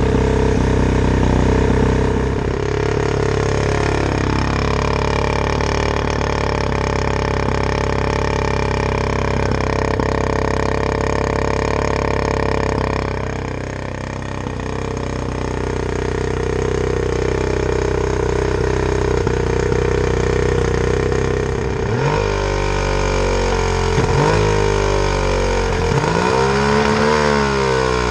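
Two-stroke outboard motor with its cowling off, running steadily on a fuel mix dosed with Sea Foam to clean its carburetors. Its tone dips briefly about halfway through and wavers up and down over the last several seconds.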